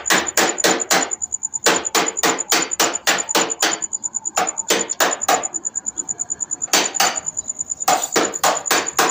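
Rapid hammer blows, about five or six a second, coming in runs with short pauses between them.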